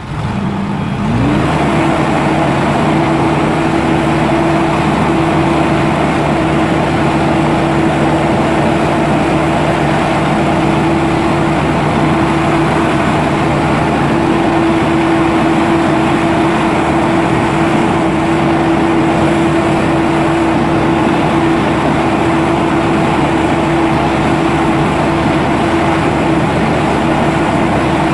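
Caterpillar 4.4-litre diesel engine of a Kershaw Skytrim 75XT tracked tree trimmer speeding up over the first second or so, then running steadily at raised speed while the hydraulic boom moves.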